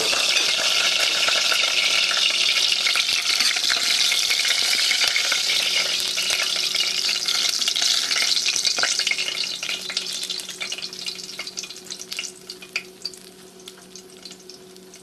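Ground-meat patty frying in a pan, a dense steady sizzle full of fine crackles. About two-thirds of the way through, the sizzle dies down to a faint crackle.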